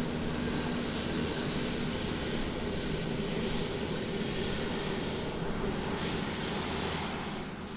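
Small quadcopter drone's electric motors and propellers buzzing steadily, a constant whirring hum with an airy hiss over it.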